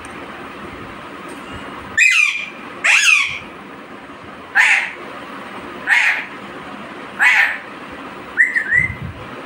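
A bird calling loudly and repeatedly: six short calls about one to one and a half seconds apart, each gliding in pitch, the last one a quick double.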